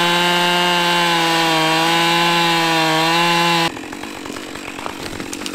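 Two-stroke chainsaw held at full throttle, cutting into dead maple wood, its pitch wavering slightly as the chain loads. About three and a half seconds in it drops abruptly to a lower, rapid idle.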